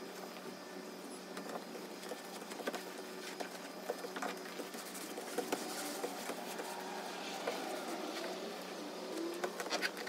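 Vinyl upholstery being worked over a dashboard by hand: light scratching and crinkling with many small ticks and an occasional faint squeak, growing busier near the end, over a steady low hum.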